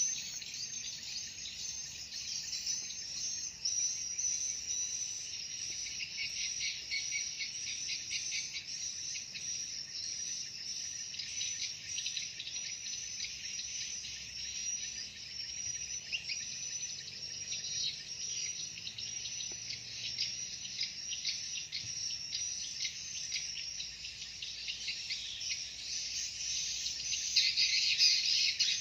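Swiftlets chirping in a dense, continuous high-pitched chatter of quick chirps and clicks, the swiftlet roosting call ('suara inap') used in swiftlet houses; it grows louder near the end.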